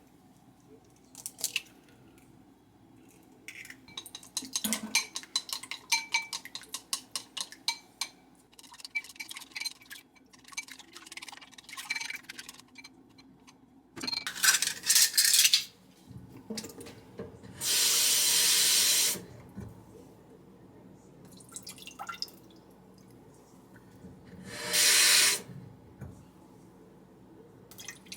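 Kitchen sink sounds: a run of small clicks and clinks, then water from a tap running in three short spells, the longest about a second and a half.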